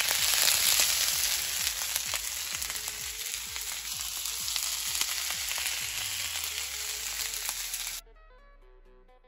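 Food frying in a pan: a steady sizzling hiss with frequent small crackles. It cuts off suddenly about eight seconds in, and quiet guitar music takes over.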